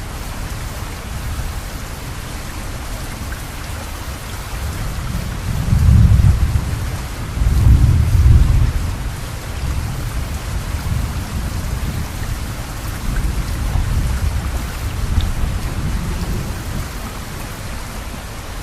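Steady rain with a long roll of thunder that swells about five seconds in and peaks twice over the next few seconds, then rumbles on more softly.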